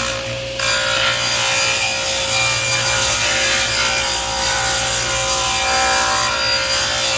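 Table saw running with its blade raised into a square board that is turned slowly against it, the blade rasping away the wood to cut a circle. The cutting gets louder about half a second in and then holds steady under the saw's constant hum.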